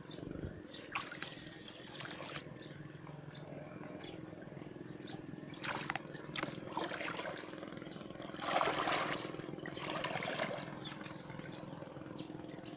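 Water splashing and sloshing as a person wades through shallow floodwater and handles a bamboo fish trap, with scattered sharp clicks and knocks and a faint steady low hum underneath. The loudest splashing comes about eight to nine seconds in.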